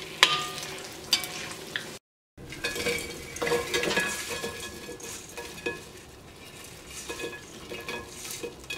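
Dried red chillies and curry leaves sizzling in hot oil, stirred with a metal slotted spoon that scrapes and clicks against the pan. The sound drops out briefly about two seconds in, then the sizzling and light clinks go on.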